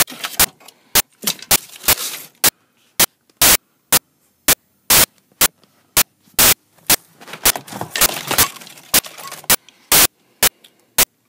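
Hoverboard circuit boards and parts being rummaged through by hand: irregular loud, sharp clacks and cracks, with two stretches of rustling handling noise.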